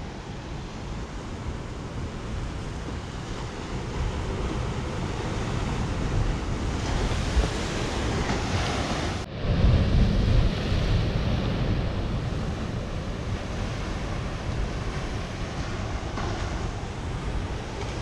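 Surf breaking and washing over black lava rocks, with wind buffeting the microphone. A louder surge comes about halfway through, as a wave crashes.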